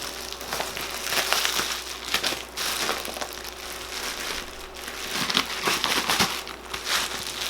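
Cardboard box and its packing being handled and pulled open, with irregular crinkling and rustling throughout.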